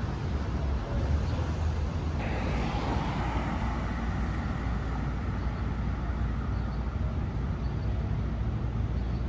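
Steady city traffic rumble. About two seconds in, a passing vehicle comes up suddenly and then slowly fades away.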